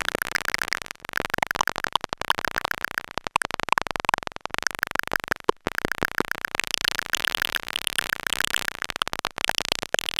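Eurorack modular synthesizer playing trainlet synthesis: short bursts of impulse streams from the Make Noise XPO, sent through two high-pass filters, come out as a dense crackle of clicks and short pitched blips whose pitch keeps shifting, with a few brief breaks. Layers are being stacked by sound-on-sound recording.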